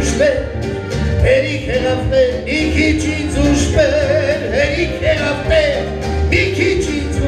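Man singing a bard song live through a microphone, accompanied by an electronic keyboard.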